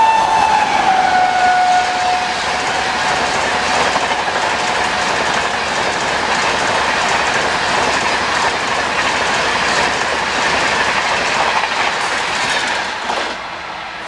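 High-speed express train passing at speed, its horn tailing off with a drop in pitch as it goes by, then a steady rush of wheels on the rails with clickety-clack that dies down near the end as the last coaches pass.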